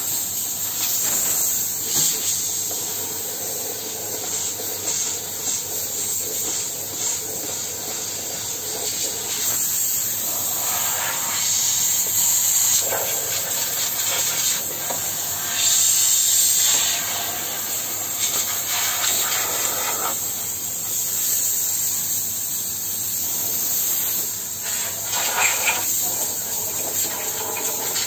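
Pressurised steam jetting from a handheld steam-hose nozzle: a continuous hiss that swells louder several times as the jet is moved about.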